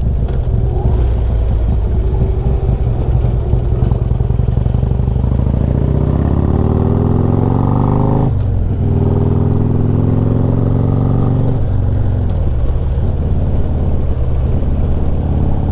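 Harley-Davidson Street Glide's V-twin engine running low, then revving up in rising pitch as the bike pulls away, with a short drop at a gear change about eight seconds in, climbing again and easing off a few seconds later, over wind noise.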